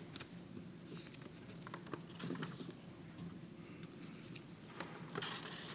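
Quiet hall room tone with a steady low hum, broken by scattered faint clicks and a sharp click just after the start, then a brief hissing rustle near the end.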